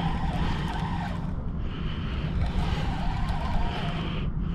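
Spinning reel cranked in short spurts against a bent rod, its gears giving a wavering whirr that stops and starts about every second, over a low rumble of wind on the microphone. The line is snagged on a rock.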